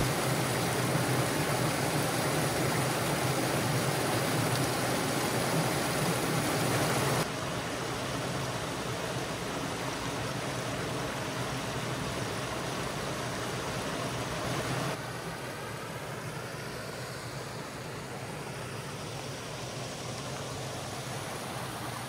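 Steady rushing water of a waterfall or creek, heard as three stretches that each step down in loudness, about 7 and 15 seconds in.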